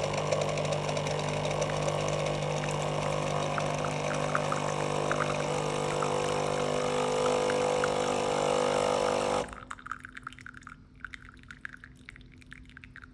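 DeLonghi capsule coffee machine running its rinse cycle: the pump hums steadily while hot water runs from the spout into a cup, with a tone rising in the second half. The pump cuts off suddenly about nine and a half seconds in, followed by faint scattered drips.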